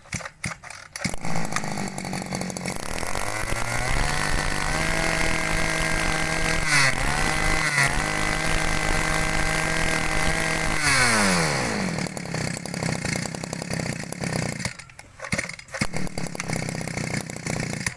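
Small 21cc two-stroke brush-cutter engine pull-started about a second in, idling briefly, then revved up and held at high speed with a short dip a few seconds later, before dropping back to idle.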